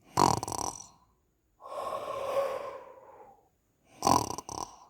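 A person imitating a sleeping lion's snoring with the voice: a short loud in-breath, a long breathy out-breath, then another short loud in-breath near the end.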